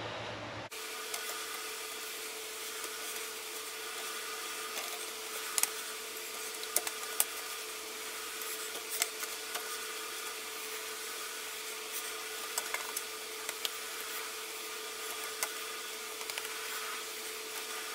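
Sped-up sound of redfish fillets being patted dry with paper towels: a steady rubbing rustle with scattered sharp ticks over a constant hum. It starts abruptly just under a second in.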